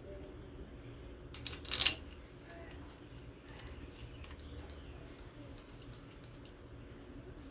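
Metal tools or parts clinking twice in quick succession about a second and a half in, over a low steady background.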